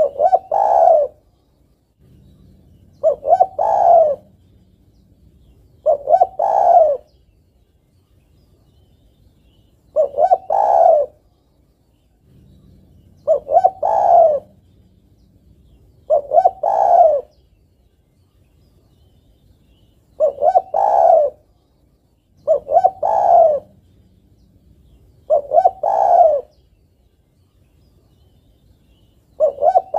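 Female spotted dove cooing: a call of two or three quick coos run into a longer rolling coo, repeated about every three seconds, some ten times. It is the female's call to a male, the kind used as a lure call.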